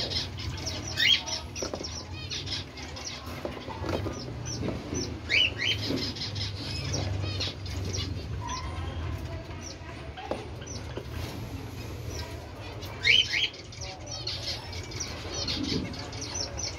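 Flock of cockatiels chirping with many short calls while feeding. A louder pair of calls comes three times: about a second in, around five seconds, and around thirteen seconds. A steady low hum runs underneath.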